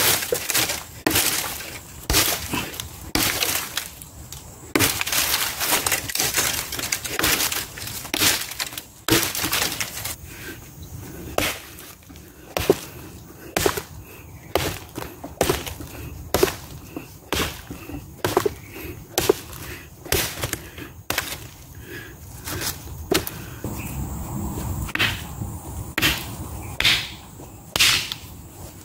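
Duku chandong parang chopping wood: a long series of sharp blade strikes into branches and a log, coming unevenly about one to two a second.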